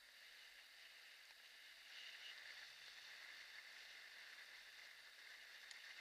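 Near silence: a faint, steady hiss that gets a little louder from about two seconds in.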